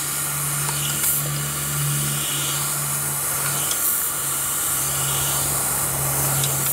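A steady low machine hum under an even hiss, with a few faint metallic clicks from a spanner working a leaking union fitting in a model steam locomotive's smokebox. The hum drops out briefly about four seconds in.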